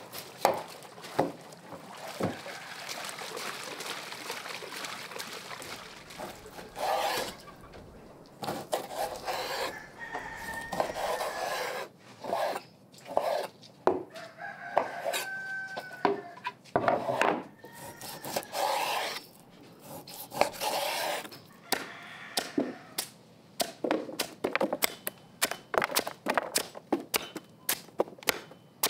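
Chickens clucking and calling in short pitched calls, with a dense run of sharp knocks in the last several seconds.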